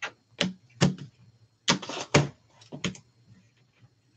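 A quick, irregular series of sharp plastic clicks and taps as trading cards in hard plastic holders are handled and set down on the table. There are about seven, with the loudest near the start and around two seconds in.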